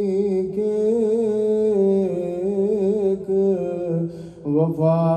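Male voice singing a long, wavering melismatic phrase of an Urdu manqabat, with the wordless held notes between lines, over a steady held drone. The voice breaks off briefly about four seconds in, then rises again.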